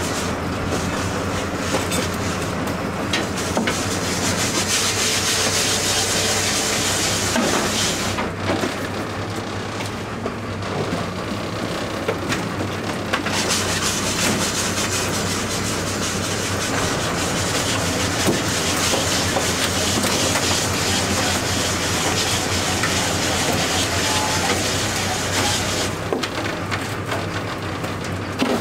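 A crab boat's engine running steadily under a continuous rattle and clatter of wire crab pots being handled on deck, with a hiss that swells and fades over two long stretches.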